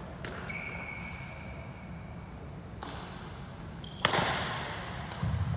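Sounds of badminton play echoing in a large sports hall: a single sharp smack about four seconds in, the loudest sound, ringing in the hall. Before it, a high steady squeal that starts suddenly and lasts about two seconds.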